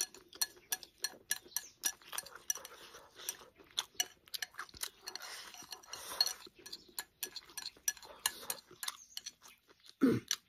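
Chopsticks clicking and scraping against a porcelain rice bowl several times a second as rice and pickled sour long beans are shovelled in and chewed. A brief low vocal sound comes near the end.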